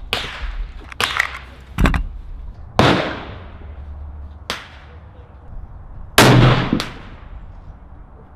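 Gunshots on a shooting range: about seven sharp reports at uneven spacing, each trailing off in an echo. The loudest and deepest comes about six seconds in.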